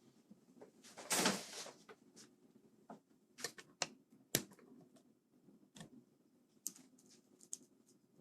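Small clicks and taps of mechanical keyboard parts and a screwdriver being handled, with a rattling scrape lasting about half a second about a second in.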